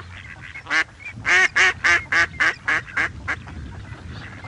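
A duck quacking: about nine short quacks, most of them in a quick run through the middle, followed by a pause near the end.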